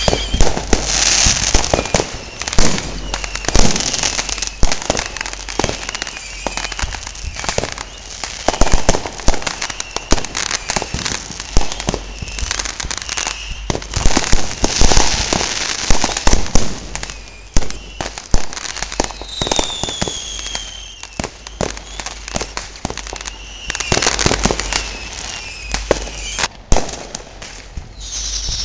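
Many consumer fireworks going off at once: a dense run of firecracker crackle and the bangs of aerial shells. A couple of shrill whistles falling in pitch come through about twenty seconds in and again near the end.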